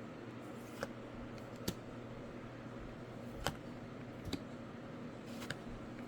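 Trading cards being handled and flipped through: about five sharp clicks and taps spread over a few seconds, over a faint steady low hum.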